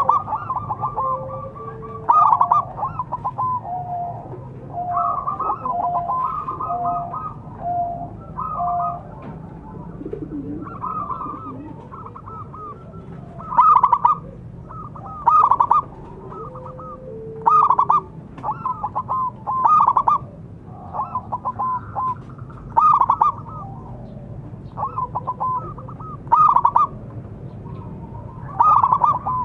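Zebra doves cooing: short bursts of quick, ringing coo notes repeated about every two seconds, with softer, lower coos between them.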